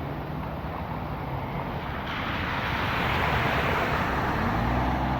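A car engine running, and from about two seconds in a louder rushing hiss as the car's tyres move through shallow floodwater. Near the end the engine rises slightly in pitch.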